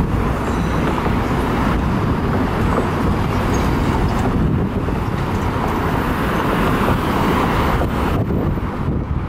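Steady road-vehicle and traffic noise with wind buffeting the microphone.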